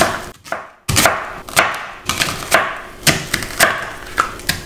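Kitchen knife slicing a sweet brown onion into half-moons on a plastic cutting board: a steady run of crisp cutting strokes, about two a second.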